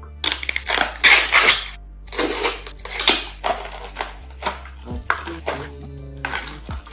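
Parcel packaging being unwrapped by hand: a run of loud, irregular crinkling and rustling bursts.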